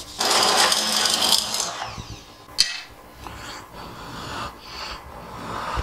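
Seasoning dispensed from a red container over a pot of soup: a loud rasping rattle lasting about a second and a half, then a single sharp click about two and a half seconds in, followed by softer handling noises.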